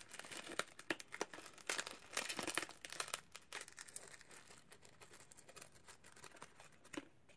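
A small striped paper powder packet being torn open and crinkled by hand: a run of crackles, busiest in the first three seconds, then sparser.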